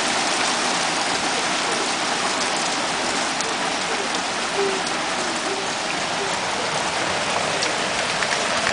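Heavy rain falling steadily, an even hiss with scattered ticks of individual drops.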